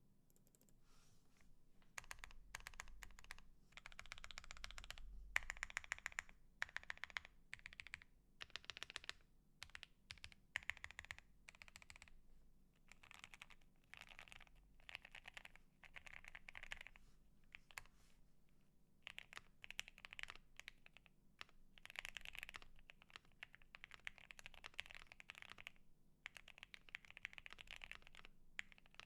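Typing on a Bakeneko60 mechanical keyboard with lubed Akko CS Jelly White linear switches (67 g springs), Evil Dolch ABS keycaps, and a case with polyfill and tape mods. Fast runs of keystrokes start about two seconds in, with short pauses between runs.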